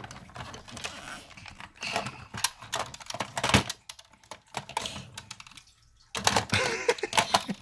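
Plastic toy figures clicking and rattling as they are shoved into a small toy car, in irregular bursts with a quiet pause a little past the middle.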